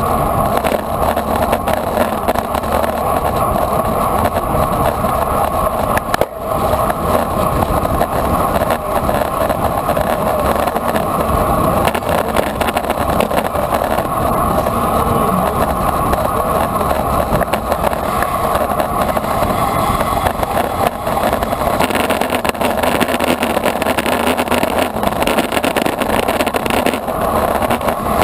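Steady rush of wind and road noise on the microphone of a camera mounted on a road bike riding at race speed.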